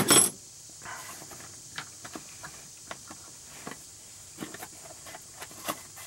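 Small metal hand tools being handled: a loud clatter at the very start as they are set down, then scattered light clinks and taps while the tool bag is handled.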